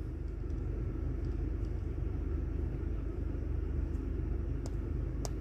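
Steady low rumble inside the cabin of a Chery Tiggo 8, with a faint click about five seconds in.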